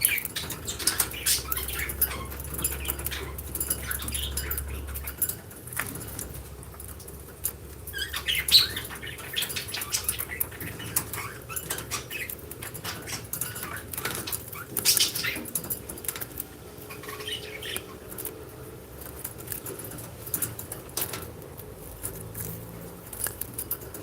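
Lovebirds making short, scattered high chirps amid irregular clicks and scuffling.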